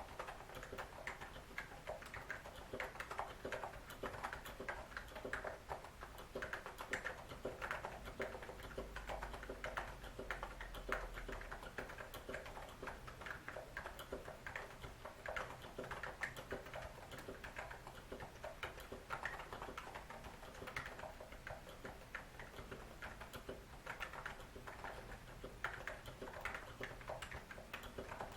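Continuous fast typing on a NiZ Plum 75 electrostatic capacitive keyboard with lubricated switches, a dense stream of soft key clicks. The owner finds that the lubing ruined its typing sound.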